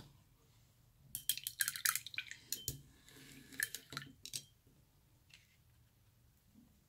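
Paintbrush rinsed in a ceramic mug of water, clinking against the side in a quick run of taps for about three seconds, starting about a second in.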